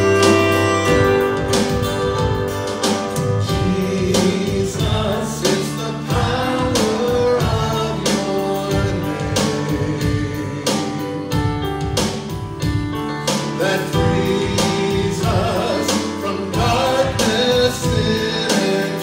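Live church worship band playing a song with singing, led by acoustic guitar and keyboard, with a steady beat.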